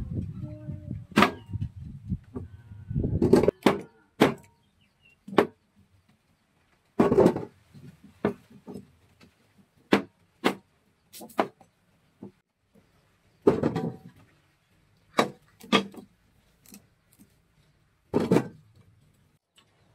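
Cleaver chopping through sweet potatoes onto a wooden cutting board: sharp, uneven chops every second or so. Near the end a cut piece is dropped into an aluminium pot.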